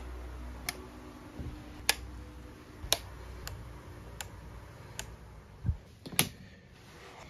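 A series of sharp, separate clicks, about one a second at uneven spacing, over a low steady hum that stops about two and a half seconds in.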